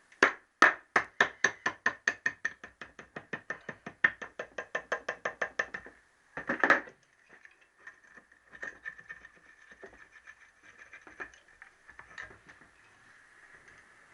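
Hammer tapping on the aluminium crankcase of a Triumph T120R 650 twin to split the case halves: a fast, even run of sharp taps, about five a second for six seconds. Then a single louder clatter as the case half comes free, followed by scattered light knocks and clinks of metal parts.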